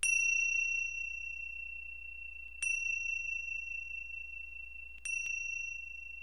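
A high-pitched chime struck three times, about two and a half seconds apart, each strike ringing on a steady tone and fading slowly.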